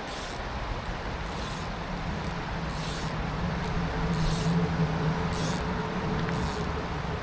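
Mountain stream water rushing steadily, with the low hum of a passing vehicle that grows loudest about halfway through and then fades.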